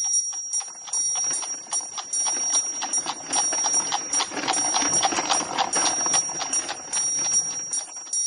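Clock ticking, about three ticks a second, with a steady high ringing tone over a swelling, hissing rumble that builds and fades, as the intro of a song.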